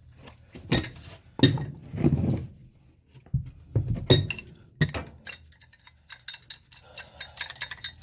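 Metal clinking and knocking as tools and black iron gas pipe fittings are handled: several sharp knocks in the first five seconds, then a run of quick light clicks.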